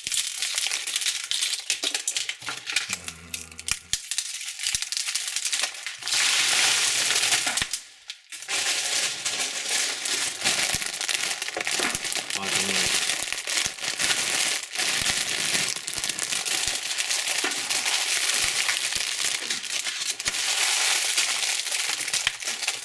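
Candy wrappers crinkling and crackling as sweets are handled and unwrapped, almost without pause, with a short break about eight seconds in.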